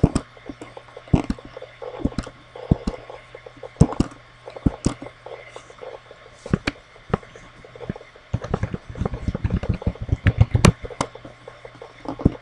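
Computer keyboard and mouse clicks: scattered single clicks, then a quick run of keystrokes about two-thirds of the way through as a username is typed, over a faint steady low hum.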